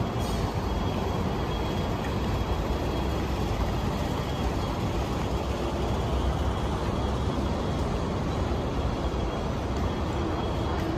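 Steady low rumble of city background noise, with a faint thin high tone held above it.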